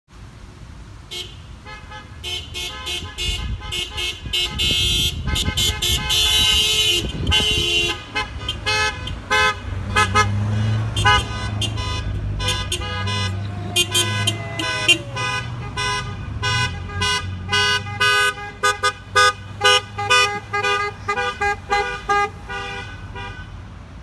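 Car horns honking over and over in short toots, with overlapping horns of different pitch, while a pickup truck's engine runs low underneath as it drives past in the middle.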